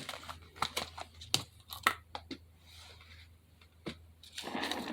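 Small sharp clicks and taps of craft pieces being handled, about a dozen of them, with a short crinkling rustle near the end.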